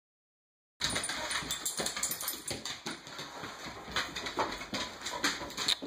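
Dogs playing and scuffling on a tile floor, their claws clicking and scrabbling on the tiles in quick irregular bursts, starting after a moment of silence.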